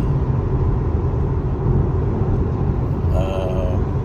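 Steady low road rumble heard inside a moving car's cabin, from tyres and drivetrain, with no distinct knock standing out.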